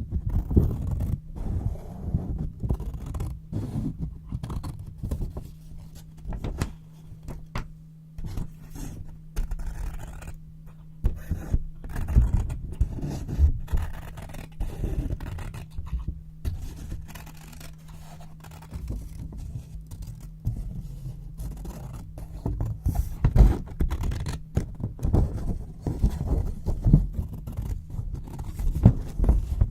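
Scissors cutting white paper: a continuous run of short, irregular snips and scrapes.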